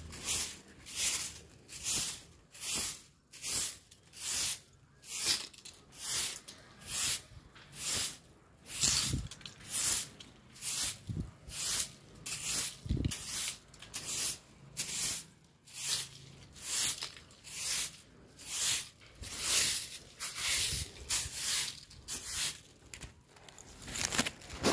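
Broom sweeping a dry, dusty concrete yard in steady strokes, about one swish a second, brushing fallen mango leaves along.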